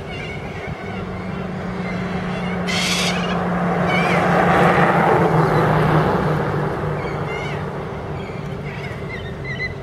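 A motor vehicle passes on the road: its engine hum and road noise swell to a peak about halfway through and fade away. Harsh screeching calls from corellas come a few times over it, the most prominent about three seconds in.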